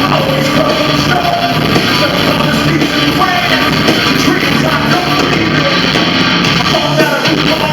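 Live rock band playing, with a singer's voice carrying a wavering melody over the band.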